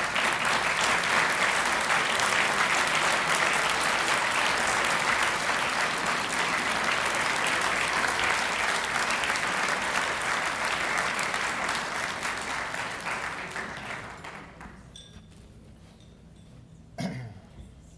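Audience applause that swells just as it begins, holds steady for about thirteen seconds, and dies away around fourteen seconds in. A single sharp knock follows near the end.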